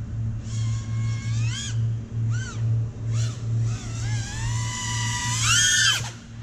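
Brushless motors of a 5-inch FPV racing quadcopter (HGLRC 2207.5, 1900KV) whining, their pitch sweeping up and down with the throttle. Near the end the whine climbs to its highest and loudest, then drops away suddenly as the throttle is chopped.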